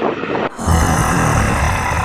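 Wind rumbling and buffeting on the microphone, which comes in abruptly about half a second in after a short stretch of steady road noise.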